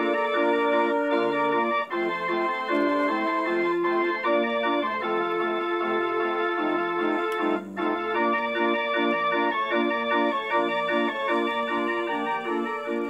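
Homemade street organ playing a tune, a melody over lower bass and chord notes, with a brief break about seven and a half seconds in.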